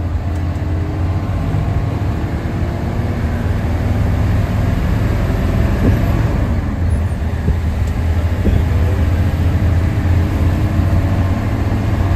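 Hino AK bus's front-mounted diesel engine running under load, heard from inside the cabin as a steady low drone with road noise. It grows louder over the first few seconds, then holds.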